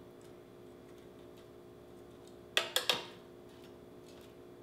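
Metal kitchen tongs clicking against the air fryer basket and each other while chicken wings are turned over: three sharp clicks in quick succession about two and a half seconds in, over a faint steady hum.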